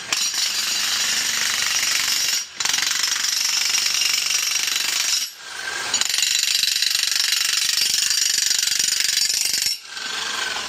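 Jackhammer chipping hardened mortar off concrete, hammering steadily and stopping briefly three times between runs.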